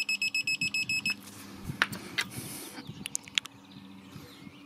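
Digital torque adapter beeping: a fast run of short, high beeps, about nine a second, that stops about a second in, followed by a few light clicks.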